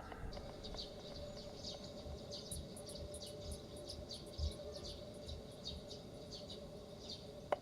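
Small birds chirping: many short, high, irregular calls over a faint steady hum.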